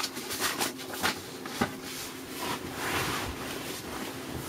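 Faint handling noise: a few light clicks and a soft rustle over a steady low hum.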